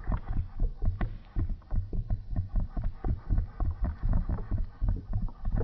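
Water bubbling in a homemade plastic-bottle bong as smoke is drawn through it: a rapid, uneven stream of low bubbling pops that keeps going without a break.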